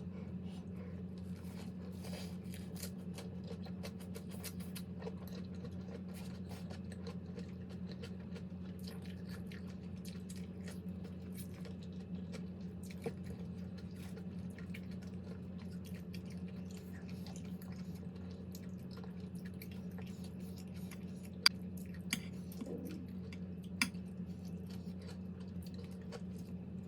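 Close-up chewing and wet mouth sounds of someone eating a spicy raw-seafood papaya salad, many small soft clicks over a steady low hum. A few sharper clicks stand out about three-quarters of the way through.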